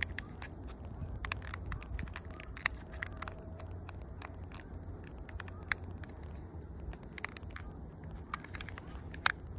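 Scattered sharp clicks and small knocks from an Academy Colt 25S airsoft pistol being handled, its magazine slid out of the grip, over a steady low rumble.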